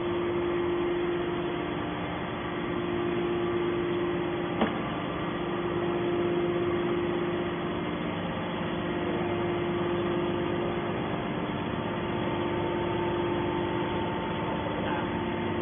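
Hydraulic scrap iron baler running: a steady motor-and-pump hum with one strong held tone, and a single sharp click about four and a half seconds in.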